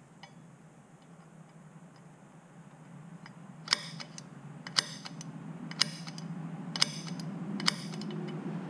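Five sharp metallic strikes about a second apart: a center punch being struck to mark a hole centre in steel plate. A low hum grows slowly louder underneath.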